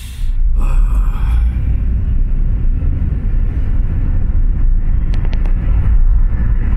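A car driving, heard from inside the cabin: a steady low rumble of road and engine noise that gets louder about half a second in.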